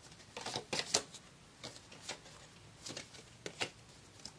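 A tarot deck being shuffled by hand, in several short bursts of cards flicking and rustling against one another, to draw a clarifier card.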